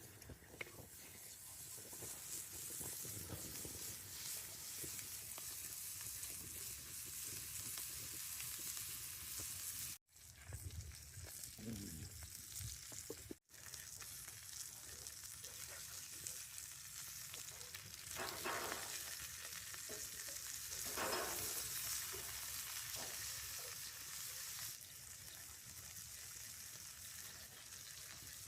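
Smash burger patties frying in a pan, giving a steady sizzle. Two short breaks occur partway through, and a couple of brief louder flares of sizzle come about two-thirds of the way in.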